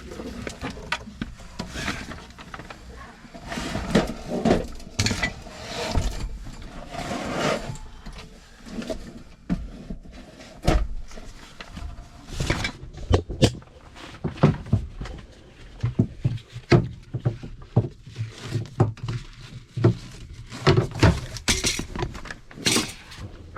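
Irregular clinks, knocks and rattles of metal parts being handled and set down: a truck power inverter and its mounting hardware being moved and lined up by hand.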